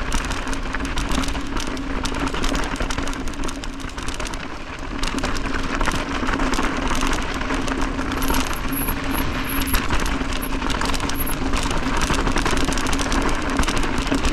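Mountain bike riding fast down a rocky dirt trail: tyres crunching over stones, with the bike's chain and frame clattering and rattling throughout. A steady low hum runs underneath, with wind noise on the microphone.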